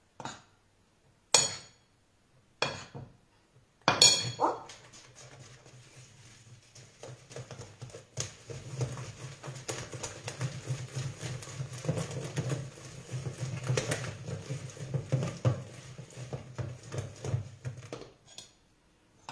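A wire whisk beating eggs in a mixing bowl for crêpe batter. A few sharp taps come in the first four seconds, then rapid, continuous clinking and scraping for about fourteen seconds, which stops near the end.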